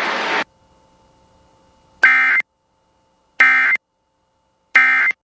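Emergency Alert System end-of-message signal: three short bursts of rasping two-tone SAME data, about 1.4 s apart, marking the end of the warning broadcast. Before them, the broadcast's hiss cuts off about half a second in.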